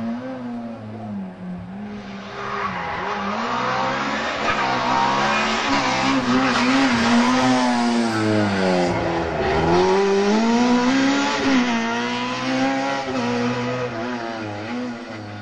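Rally car engine revving hard on a tarmac stage. The pitch rises and falls through the gears, drops sharply about nine seconds in as it slows for a tight hairpin, then climbs again as it accelerates away.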